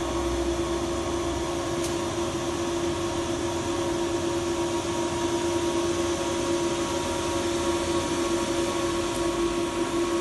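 Steady electrical hum: one strong low tone and a few fainter higher tones over a fan-like hiss, with a faint click about two seconds in.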